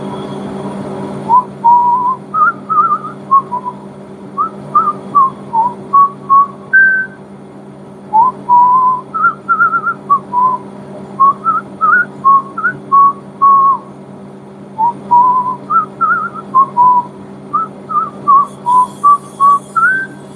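A man whistling a tune in short, gliding notes over the steady hum of a running machine.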